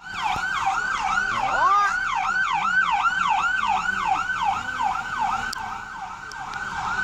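Electronic emergency-vehicle siren in a fast yelp pattern, about three rising-and-falling sweeps a second. A second, slower tone winds upward about a second and a half in.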